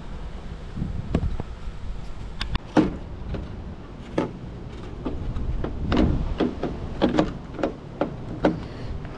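Irregular clicks and knocks of hands handling the taillight assembly and its hardware.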